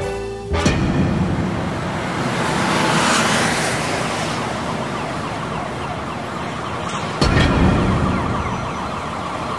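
City street traffic noise with a siren. A deep rumble swells up about half a second in and again about seven seconds in. The last of a music track cuts out as the street noise begins.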